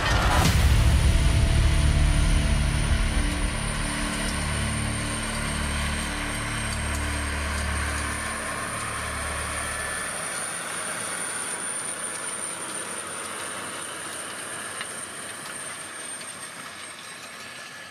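John Deere 9630T tracked tractor's diesel engine running under load as it pulls a Horsch Joker disc harrow through stubble, with the noisy hiss of the harrow working the soil. The sound is loudest in the first few seconds and fades as the rig moves away, and the deep engine rumble drops out about ten seconds in. A steady high whine runs under it.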